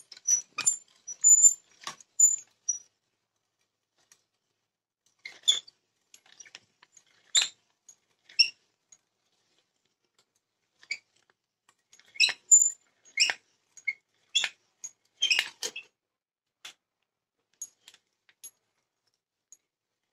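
Hand-turned auger bit boring into a wooden block: irregular clusters of short crackles and squeaks as the bit cuts and lifts wood chips, with pauses of a second or two between turns.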